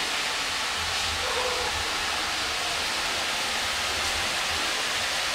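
Diced bottle gourd sizzling in hot oil in a steel kadai on a gas stove: a steady, even frying hiss.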